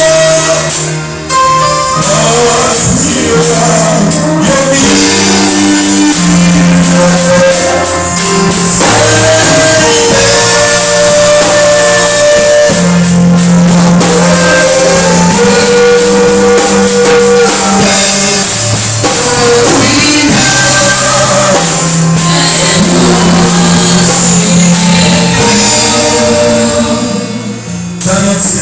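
Gospel worship song: sung vocals with long held notes over drums and tambourine.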